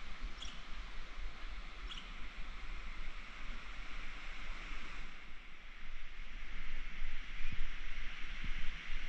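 Steady outdoor ambient hiss, even and unbroken, with two faint short high chirps about half a second and two seconds in, and a few soft low thumps near the end.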